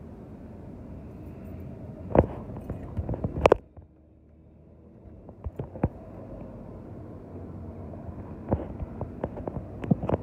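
Handling noise from a handheld phone carried while walking: a steady rubbing rustle with scattered knocks, the two loudest about two and three and a half seconds in, and smaller ones near the end.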